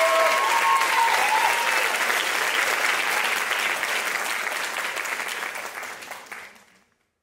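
Audience applauding, with a few voices cheering over it in the first couple of seconds. The applause thins and fades out, going silent just before the end.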